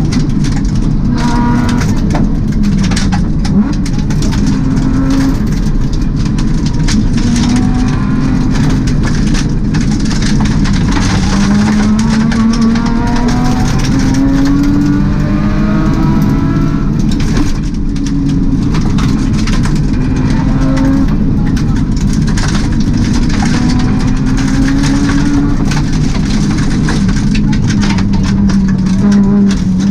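Subaru rally car heard from inside the cabin at full stage pace: the engine's pitch climbs and drops again and again as it accelerates and shifts through the gears. Underneath runs a constant roar of tyres on gravel, with stones clicking against the car.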